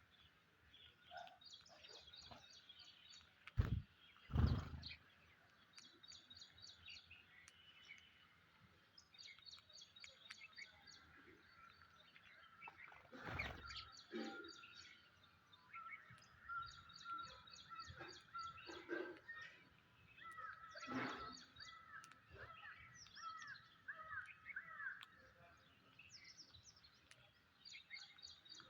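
Birds chirping in quick repeated high-pitched series throughout, with a few dull thumps, the loudest pair about four seconds in.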